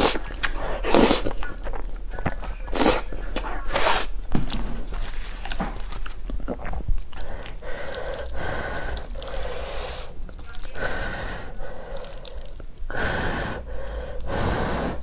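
Someone eating spicy noodles: several short, sharp slurps in the first few seconds, then chewing.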